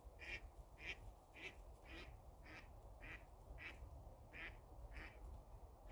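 A bird calling faintly and repeatedly: about nine short, evenly spaced calls, nearly two a second.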